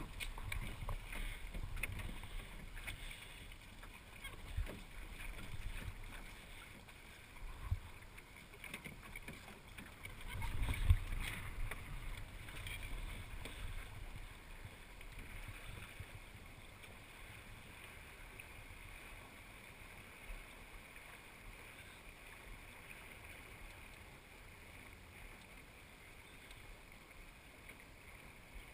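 Small sailing dinghy under way: water washing along the hull and wind gusting on the microphone, with a few low knocks, the loudest about eleven seconds in, then settling to a faint steady hiss.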